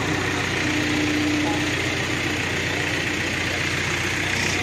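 Engine of a crane running steadily while it hoists a heavy steel milk cooler tank, with a brief steady tone about a second in.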